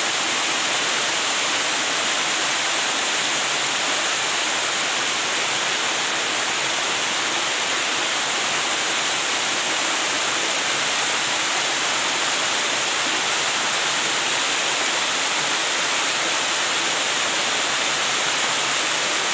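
Small waterfall cascading in thin streams down stepped rock, a steady even rush of water with its flow on the low side.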